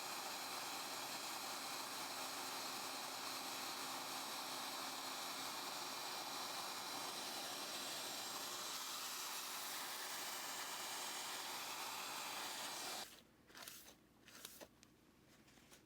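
Prometheus desktop PCB mill's 50,000 RPM spindle cutting the outline out of copper-clad board, a steady hissing whine that stops suddenly about thirteen seconds in; a few faint clicks follow.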